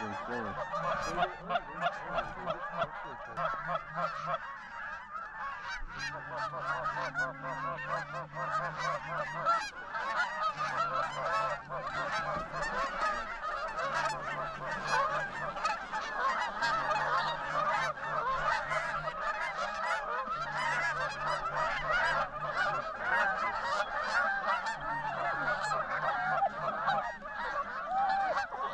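A large flock of Canada geese honking, many calls overlapping in a continuous chorus.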